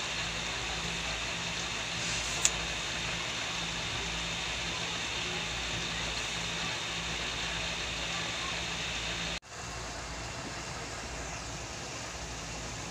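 Pot of santol in coconut milk simmering on the stove: a steady hiss of bubbling with a low hum underneath and one short click about two and a half seconds in. The sound drops out abruptly about nine seconds in, then carries on slightly quieter.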